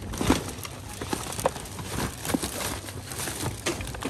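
Hands rummaging through rubbish in a dumpster: plastic packaging and bags rustling, with irregular knocks and clatters as items are shifted, the sharpest one just after the start.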